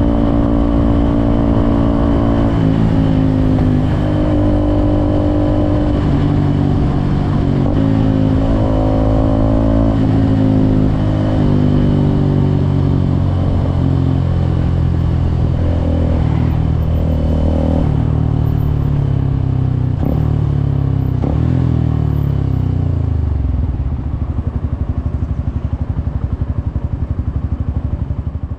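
Suzuki Gixxer SF 250's single-cylinder engine running on the move, its revs rising and dropping in steps as it changes gear. Past the middle the revs fall away, and for the last few seconds it runs at a low, evenly pulsing note, quieter than before.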